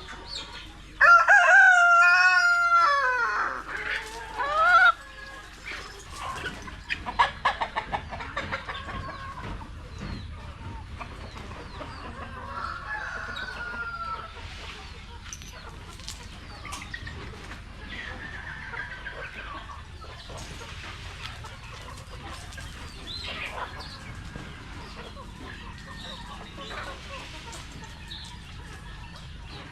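Rhode Island Red rooster crowing once about a second in, a long loud call that falls away at the end. Hens cluck and call steadily after it.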